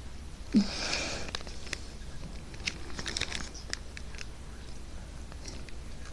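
Firework packs being handled and moved about: a knock about half a second in, a short rustle, then scattered light clicks and taps.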